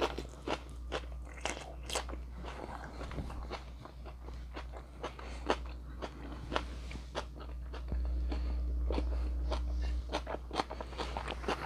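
Close-miked chewing of a mouthful of steak and onion: wet mouth clicks and soft crunches at an uneven pace, over a steady low hum.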